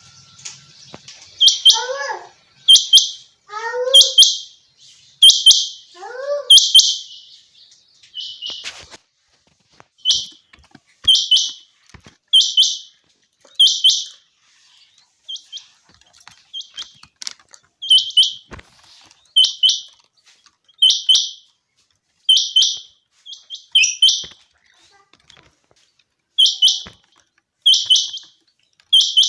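Common quail calling: short, sharp, high notes repeating about once a second in runs of three to five, with short pauses between runs. A few lower calls falling in pitch are mixed in during the first seven seconds.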